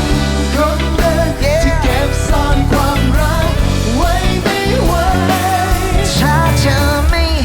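Pop-rock band playing a song: a melody line that slides and bends over bass, drums and guitars.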